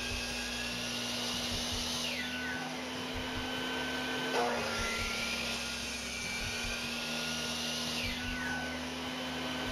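Bucket-top shop vac running steadily, drawing dust from a miter saw's exhaust port. Over it the miter saw's motor whines at speed, winds down about two seconds in, starts up again about four and a half seconds in, and winds down again near the end.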